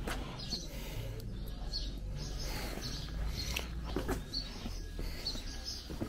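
Small birds chirping: short, high chirps repeating about once a second, over a low steady rumble and a few sharp clicks.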